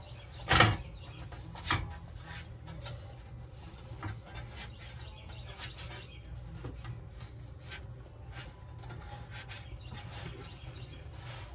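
Kitchen handling sounds over a steady low hum: a sharp knock about half a second in and a smaller one near two seconds, then faint scattered taps and rustles.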